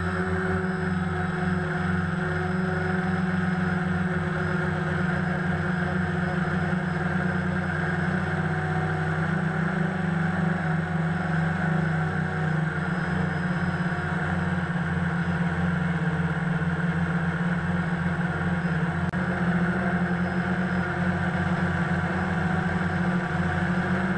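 DJI Phantom quadcopter's motors and propellers humming steadily, heard from the GoPro mounted on the drone in its waterproof case. The pitch shifts slightly as the drone flies.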